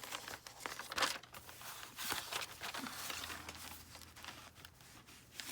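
Paper pages of a handmade junk journal rustling and crinkling as they are handled, in irregular short strokes.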